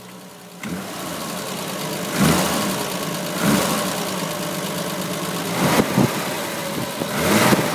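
Triumph GT6's straight-six engine running at a steady idle, with several short rises in revs.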